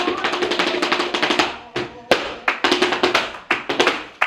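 Hands clapping: a dense patter of many claps that thins about one and a half seconds in to single sharp claps in an uneven rhythm, two or three a second.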